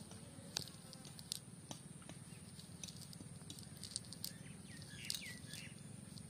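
Scattered light clicks and taps as a cast net's weighted hem is handled and sorted, over a faint steady low hum. A few short bird calls come in about five seconds in.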